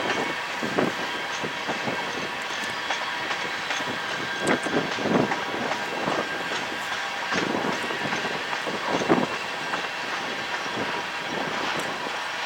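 Freight cars of a manifest train rolling by at low speed: a steady rumble of wheels on rail with irregular clacks and thumps as wheels cross rail joints, a cluster of them about four to five seconds in and again around seven and nine seconds.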